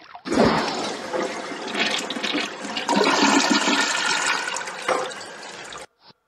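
Toilet flushing: a rush and gurgle of water that cuts off suddenly near the end.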